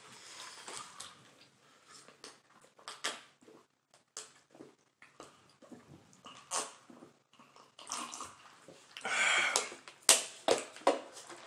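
A person drinking from a disposable cup after eating very spicy food: small swallowing and cup-handling clicks, with a louder noisy burst about nine seconds in and a few sharp clicks after it.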